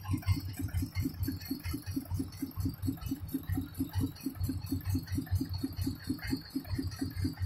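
Kubota RD85DI single-cylinder diesel engine running at a steady idle, an even chugging beat of about six firings a second.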